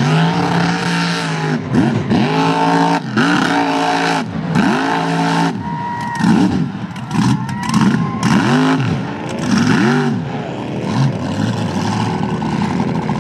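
Supercharged big-block V8 of a mega mud truck, revved hard again and again, its pitch climbing and dropping about once a second, coming quicker in the second half.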